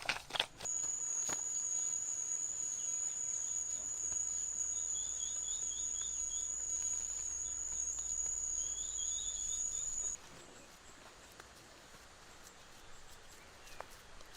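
Steady high-pitched insect trill with two brief runs of faint chirps. The trill cuts off suddenly about ten seconds in.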